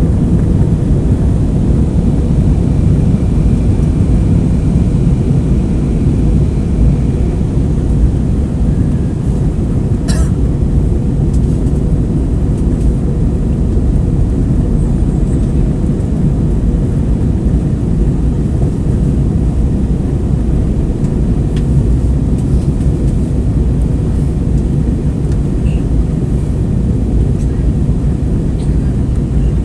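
Airliner cabin noise in flight: a loud, steady, even rumble of engines and airflow, with a single faint click about ten seconds in.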